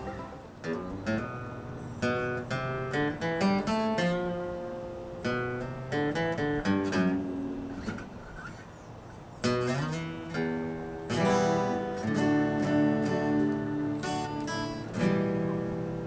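Acoustic guitar being picked: single notes and chords with a couple of brief pauses, turning to louder strummed chords a little past halfway.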